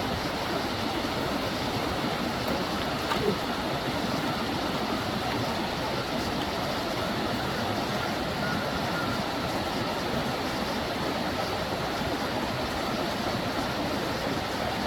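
Steady rushing of a mountain stream, an even wash of running water, with a faint click about three seconds in.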